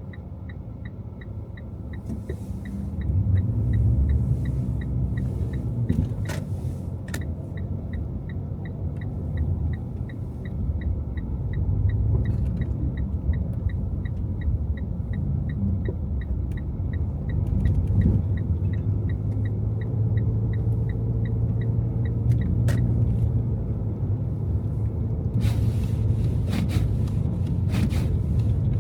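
A car driving through city streets, its engine and tyre rumble steady and low and swelling now and then. A light regular ticking about twice a second runs through most of it and stops about three-quarters of the way through, and a few sharp clicks fall near the end.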